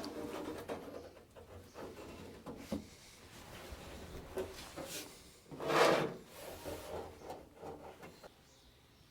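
Sheet-metal floor panel being shifted and test-fitted into a truck cab floor: scattered rubbing, scraping and light knocks of metal on metal, with one louder scrape about six seconds in.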